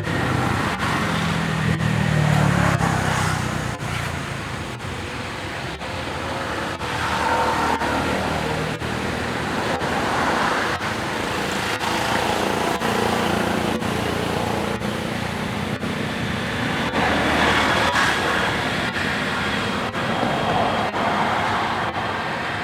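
Road traffic noise: a steady wash of passing vehicles, with an engine growing louder about two seconds in and again near the end.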